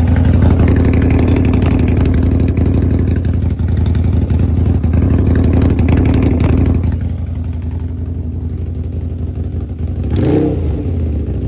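Air-cooled motorcycle engine running, heard close to the exhaust: a steady, loud run for about seven seconds, then noticeably quieter.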